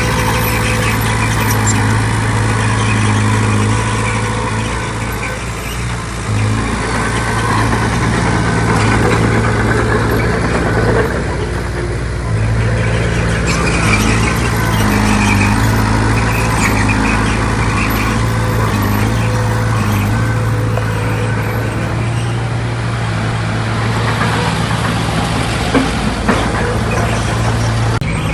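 Diesel engine of heavy earthmoving machinery running steadily at a low, even pitch.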